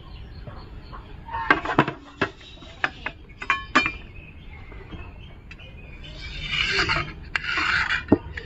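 Stainless steel utensils and a lid clinking against steel vessels: a few sharp metallic clanks, some ringing briefly. Then a knife scrapes twice around the rim of a steel plate, loosening a steamed kinnathappam from the plate.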